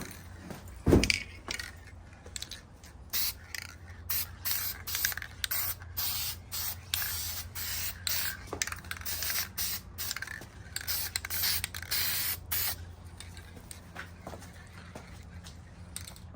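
Aerosol spray paint can spraying in many short hissing bursts, a part being coated a pass at a time, over a steady low hum. A single loud thump comes about a second in.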